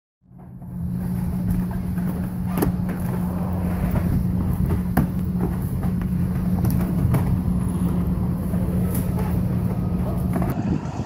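An engine running steadily with a low, even hum, and a few sharp knocks as cases of canned sparkling water are handled and set down.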